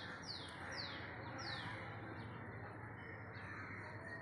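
A bird calling a quick run of short, high notes that each fall in pitch, four of them about half a second apart in the first second and a half, over steady background noise.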